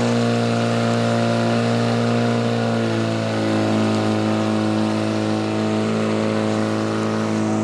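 Engine running steadily, its note shifting slightly about three seconds in.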